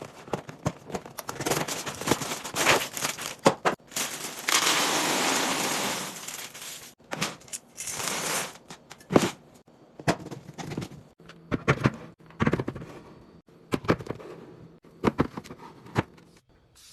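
Food containers and packaging being handled while a fridge or pantry is restocked: a run of sharp taps, clicks and knocks with crinkling, and a steady rush of noise lasting about two seconds, about four and a half seconds in.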